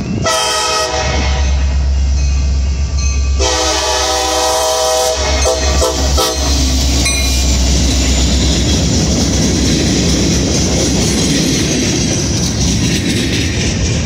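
CSX SD70MAC diesel locomotive's horn: a blast of about a second, then a longer blast of about two seconds starting about three seconds in, with a few quick toots right after it. Then the freight cars roll past with a steady rumble of wheels on rail.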